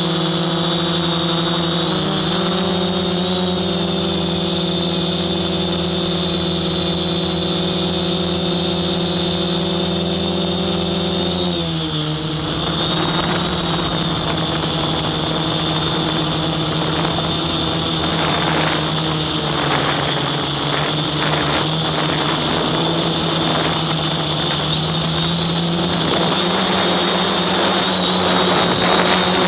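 Quadcopter's electric motors and propellers whining steadily in flight, heard from on board. The pitch steps up slightly about two seconds in and drops about twelve seconds in as the throttle changes, with bursts of rushing noise a little after halfway.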